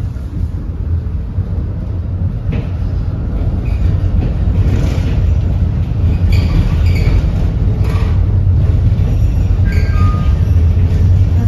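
Konstal 805Na tram running along the track, heard from inside the car: a low rumble of motors and wheels that grows louder over the first few seconds, with scattered clacks of the wheels over rail joints.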